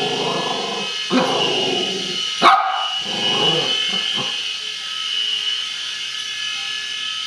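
A Chiweenie barking in bursts of about a second, with one short sharp peak about two and a half seconds in, over the steady high whine of a small toy RC helicopter's electric rotor motor. The barking stops after about four seconds, leaving the whine alone.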